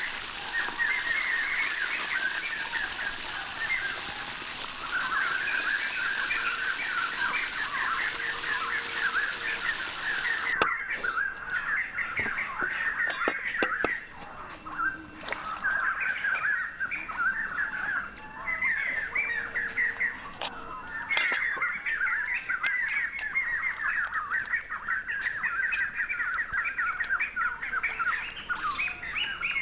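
Fish deep-frying in a wok of hot oil, an even sizzle that stops about ten seconds in, followed by occasional knocks of a cleaver on a wooden chopping block. Birds chirp rapidly and continuously throughout, the loudest sound.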